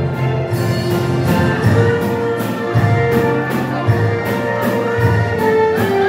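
Dance-band music: a bass line, a steady beat and held melody notes.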